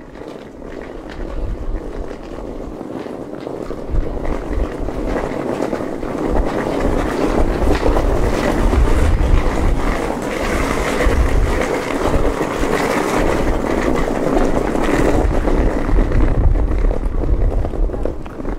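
Wind rumbling on the microphone, with a passing vehicle's noise that swells through the middle and eases off near the end.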